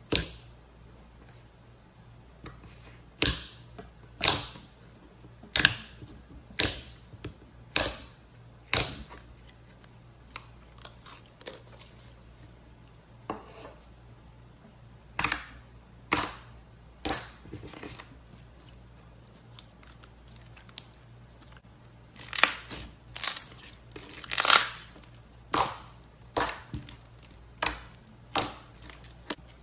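Slime being pressed and pulled apart by hand, each squeeze giving a short, sharp crackle or pop, about twenty of them at irregular intervals with a quieter stretch in the middle.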